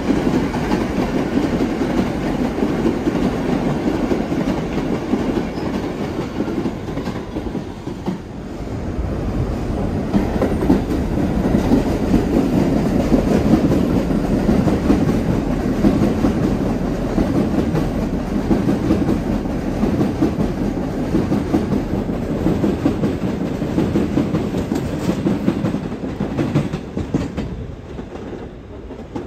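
New York City Subway train cars running along elevated viaduct track close by, a steady rolling rumble of wheels on rail. The sound dips about eight seconds in, builds again, and fades away near the end.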